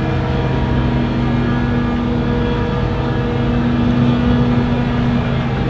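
XCMG XC7-SV12 skid steer loader's engine running steadily, a loud continuous hum with a few held tones that shift slightly in pitch around the middle.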